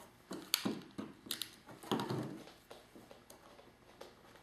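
Small die-cut paper flowers handled and pressed together on a tabletop: soft paper rustles with a few sharp little taps and clicks.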